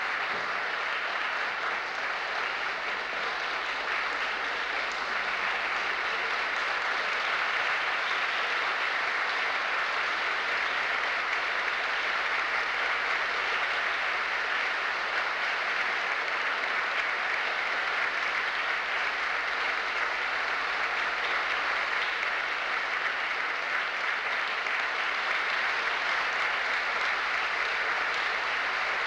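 Theatre audience applauding steadily through the curtain calls at the end of a ballet performance.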